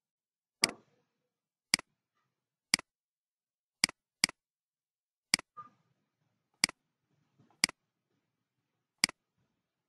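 Computer mouse clicking nine times at uneven intervals, about once a second, with two quick clicks close together about four seconds in.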